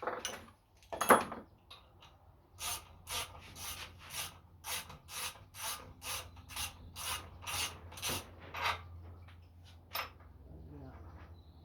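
A hand tool scraping on the steel of a Honda GX270 crankshaft's end: a sharp knock about a second in, then a steady run of short rasping strokes, about two a second, and one last stroke near the end.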